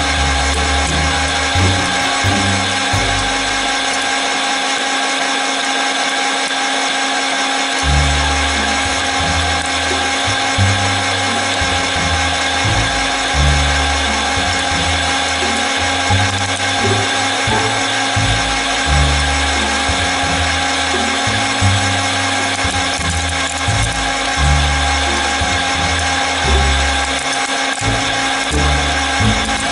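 Bernardo Hobby 500 metal lathe running with a steady whine while its tool cuts across the face of a chuck backplate. Background music with a bouncing bass line plays over it.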